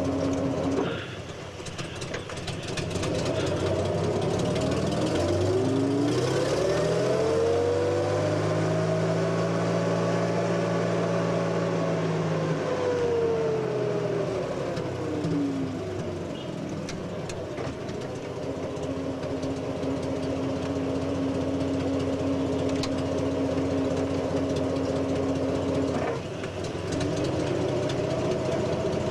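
Vehicle engine idling, revving up over a few seconds and easing back down to a steady idle, then idling on.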